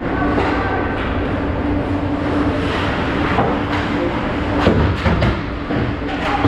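Ice hockey play at rink level: skates scraping the ice, with sticks and puck clacking in several sharp knocks a few seconds in, over a steady low hum.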